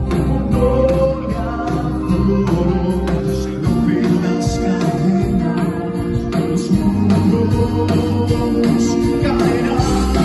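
Worship band playing a song live in rehearsal: singing over guitar and other instruments, with a steady beat.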